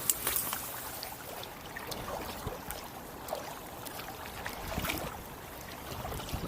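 Kayak paddling: water trickling and splashing off the paddle blades in light, scattered drips over a steady wash of water.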